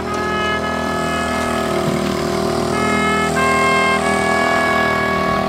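Background music: a slow melody of held notes that steps to a new pitch every second or so, over a steady low drone.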